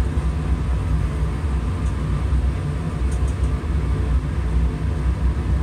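Steady low mechanical hum and rumble, with a few faint light ticks about two and three seconds in.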